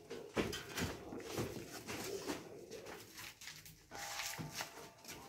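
Several dogs at steel food bowls on bare ground: a scatter of short knocks and clinks from the bowls, with quiet animal noises among them.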